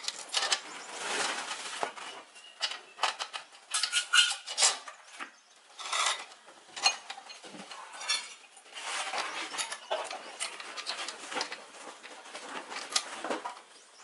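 Motorbike roller drive chain clinking and rattling in the hands as it is fed around the rear sprocket: a string of irregular metallic clinks.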